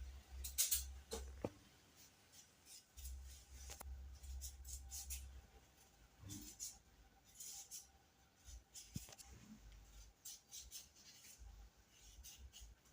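Faint, scattered rustling and light clicks and taps of vegetables and kitchen items being handled, in short irregular bursts.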